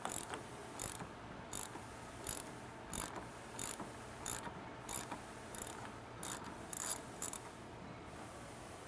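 Hand ratchet wrench clicking in short bursts, about one every two-thirds of a second, as nuts are undone to take the strut tower brace off; the clicking stops near the end.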